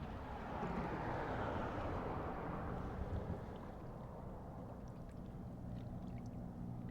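Distant motorboat on the lake: a steady low engine hum, with a rushing wash that swells about half a second in and fades away after a few seconds.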